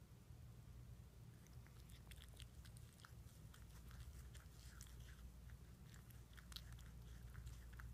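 Faint wet clicks and smacks of a sphynx cat's tongue licking another cat's head, starting about a second in and coming in quick irregular runs over a low steady hum.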